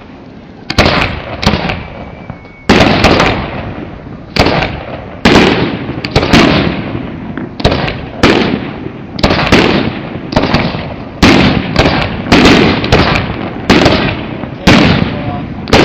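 Aerial fireworks bursting in quick succession, loud sharp booms about one to two a second, each followed by a short rumbling echo.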